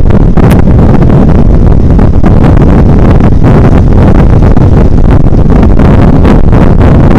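Wind buffeting the microphone of a camera on a moving motorcycle: a loud, steady low rumble, with the motorcycle's road noise underneath.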